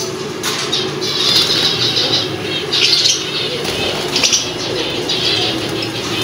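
A hand-pumped pressure sprayer misting water into bird cages in several short hissing bursts, with the caged birds flapping their wings. A steady low hum runs underneath.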